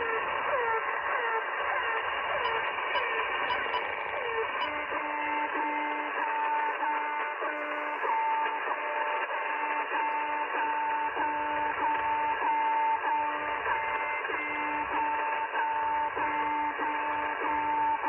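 Shortwave reception of Russian channel-marker signals in upper sideband over steady static hiss. First comes a short falling tone repeating about every half second. About four and a half seconds in, with the receiver retuned, it gives way to a different marker: an evenly repeating string of short tone pulses.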